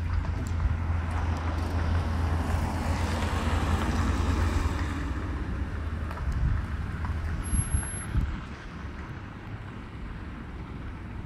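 Wind rumbling on the microphone, with a vehicle's broad rushing noise swelling about two seconds in and fading away by about eight seconds.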